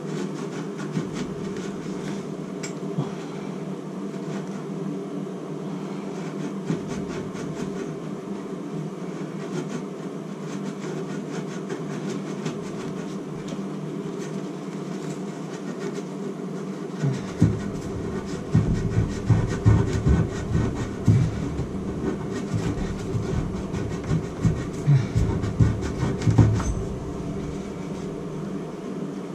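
Plumbing pipe being scrubbed clean by hand to prepare it for sweating, over a steady low hum. About halfway through, a run of heavier, irregular rubbing strokes begins and lasts about ten seconds.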